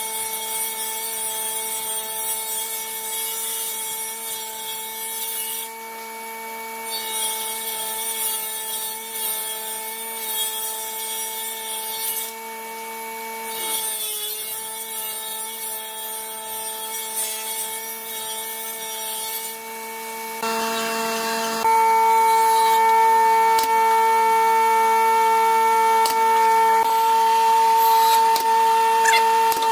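Table saw running with a steady whine while hardwood strips are ripped along the fence. The cutting hiss comes in three passes with short breaks between them. About two-thirds of the way through, the cutting stops and the machine whine grows louder.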